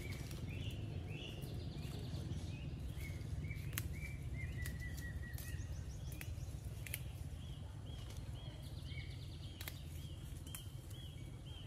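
Wild birds calling in strings of short, repeated chirping notes over a low, steady outdoor rumble, with a few light snaps as tea leaves are picked by hand.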